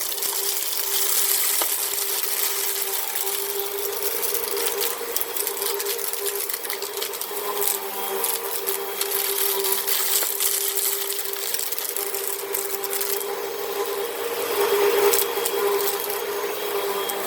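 Hoover vacuum cleaner running steadily with a constant motor whine and rushing air, while sand and small debris pick up with a scattered rattle of clicks.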